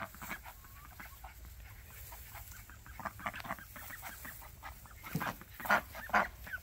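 A small backyard flock of young hens and ducks calling: a run of short, separate clucks and quacks, with a few louder calls near the end.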